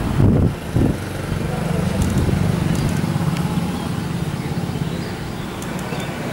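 WAP-7 electric locomotive accelerating with a passenger train, giving off a steady low hum from its traction motors and cooling blowers. A couple of strong low rumbles sound in the first second.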